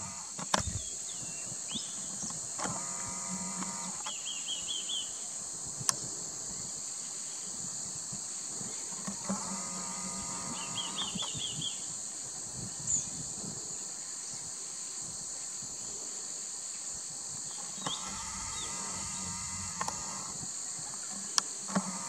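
Steady high-pitched drone of insects, with short series of quick chirping bird notes twice. A low buzzy hum comes and goes three times, and there are a few sharp clicks.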